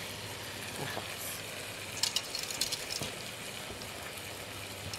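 Wire whisk stirring a liquid cream in a stainless steel pot, with a run of light clicking scrapes against the metal about two seconds in, over a steady low hiss. The starch has just gone in and is being whisked through so the cream thickens.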